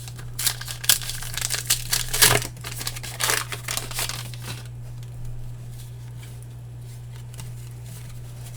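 A foil baseball-card pack wrapper being torn open and crinkled by hand, crackling for about four seconds and then stopping, leaving a steady low hum.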